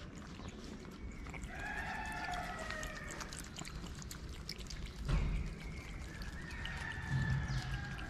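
Stray cats eating wet food from plastic trays: a run of small wet clicks from chewing and licking. Drawn-out, slightly falling animal calls come twice, and there is a dull thump about five seconds in.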